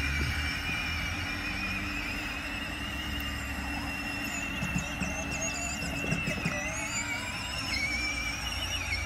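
Battery-powered ride-on toy carriage's electric motor and gearbox whining steadily, the pitch wavering as it drives, over a low rumble.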